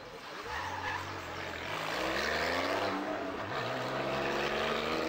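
Rally car engine revving hard as the car accelerates out of a tarmac hairpin. The pitch climbs, drops sharply at a gear change about three and a half seconds in, then climbs again.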